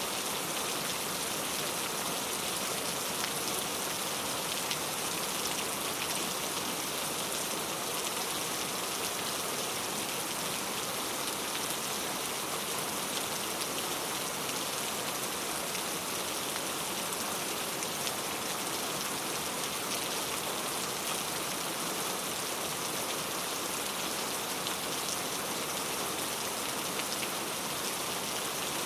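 Heavy rain falling steadily: a constant dense hiss with scattered droplet ticks.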